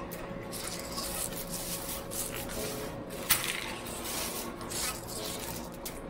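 Hard-candy cough drops clicking and sliding against each other and a metal table as gloved hands spread and sort them, with one sharp clack about halfway through.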